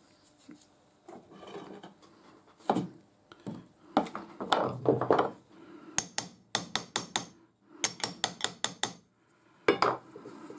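Hammer tapping on the spindle end of a lathe live centre, seating its bearing: two quick runs of light, ringing metal taps, about six and then seven. Before them come a few separate knocks and handling sounds of the steel centre on the wooden bench, and a last knock comes near the end.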